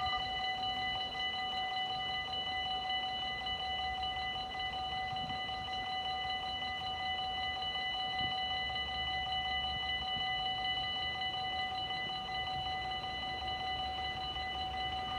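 Dutch railway level-crossing warning bell ringing steadily: the crossing is closing for an approaching train. A low background rumble lies underneath.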